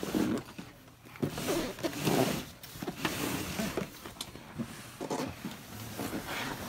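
Cardboard boxes being handled and slid against each other, with irregular rubbing, scraping and light knocks.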